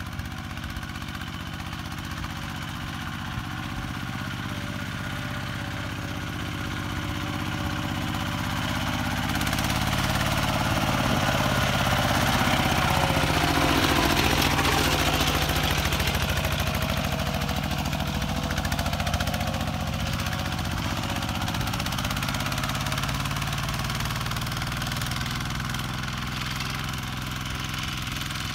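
Kubota RT120 single-cylinder diesel engine on a two-wheel walking tractor running steadily as it works the field. It grows louder as the machine comes close by about halfway through, with a slight bend in pitch as it passes, then fades as it moves away.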